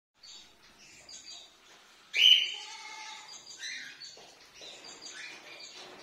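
Sun conures chirping and chattering in short high calls, with one loud harsh call about two seconds in.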